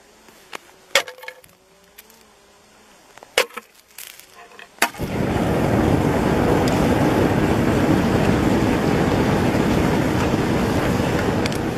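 A knife blade strikes the clear lake ice a few times, sharp knocks, as a hole is chipped into a gas pocket trapped under the ice. About five seconds in, a loud steady rushing starts and runs for about seven seconds before cutting off: gas escaping from the opening.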